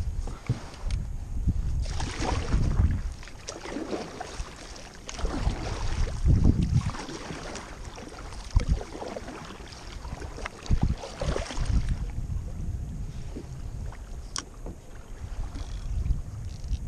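Water sloshing and slapping against the plastic hull of a Wilderness Systems Tarpon 120 sit-on-top kayak in irregular surges, with wind buffeting the microphone. A few sharp knocks come through, one near the middle and more in the second half.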